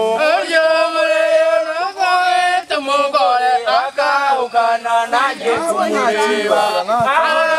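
Voices singing a chant together, with long held notes and more than one pitch at a time.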